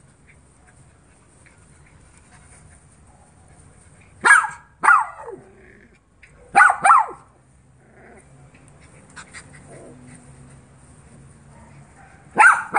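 Small dogs barking while play-fighting: two quick barks about four seconds in, two more about six and a half seconds in, and another pair near the end, with quiet in between.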